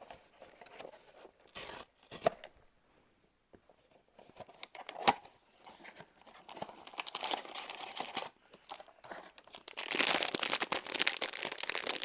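Blind-box packaging being torn open and crinkled by hand: scattered rustles and tears, a brief lull a couple of seconds in, then dense crinkling and tearing from about ten seconds in.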